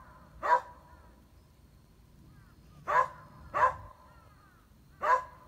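Beagle-type dog barking sharply at a bird perched on a treetop, four single barks: one about half a second in, a quick pair around three seconds, and another near the end.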